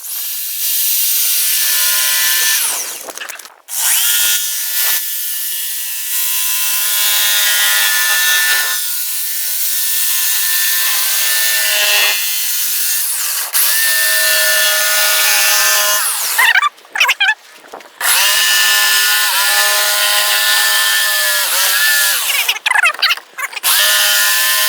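Electric power saw cutting a thin luan plywood panel, its motor whining in several long runs with short stops between. The pitch dips in places as the blade loads up in the wood.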